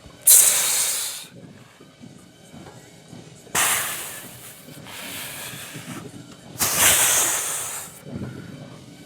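Three loud, hissing breaths out, each starting suddenly and trailing off over a second or so, about three seconds apart: a lifter exhaling hard through the teeth on his reps.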